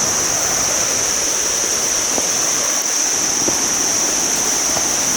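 Kuang Si waterfall: water cascading with a steady, even rush. A steady high-pitched buzz runs over it.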